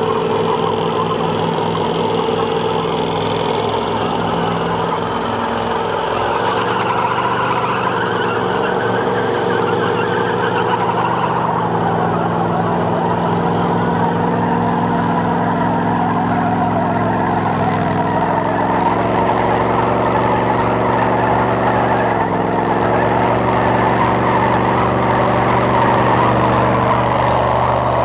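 Pickup truck engines held at high revs, straining under load in a tug-of-war pull, their pitch wavering up and down, with tyres spinning in loose dirt.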